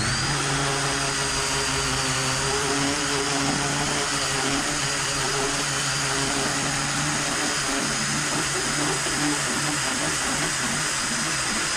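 Electric drill running steadily with a fluted rotary file bit, grinding out the centre hole in an old copper coin. It starts up suddenly at the beginning with a high whine that holds steady over the grinding noise.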